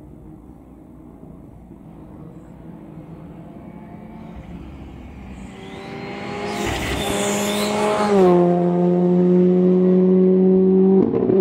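Ford Fiesta R5 rally car's turbocharged 1.6-litre four-cylinder engine approaching at full speed, growing louder, then passing about 8 seconds in with a drop in pitch and holding a loud, steady note as it goes away.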